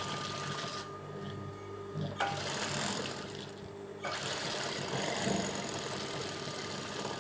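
Industrial sewing machine stitching a seam, running in three spells with two short pauses. A steady low motor hum carries on underneath throughout.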